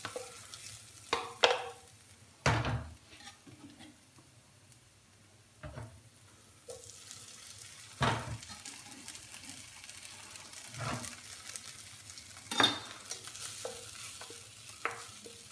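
Wooden spoon stirring in a non-stick frying pan and a chef's knife on a wooden cutting board, giving about eight separate sharp knocks spread over several seconds. Underneath is a faint sizzle of shallots and spring onions softening gently in olive oil, not browning.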